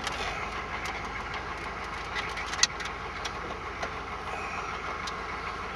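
Steady engine and road noise of a moving vehicle heard from inside the cabin, with scattered light clicks and rattles and one sharper click about two and a half seconds in.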